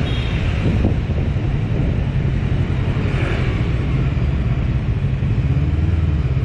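Bristol Veloce 500 motorcycle's engine running steadily as the bike rides along at low speed, with wind noise on the microphone.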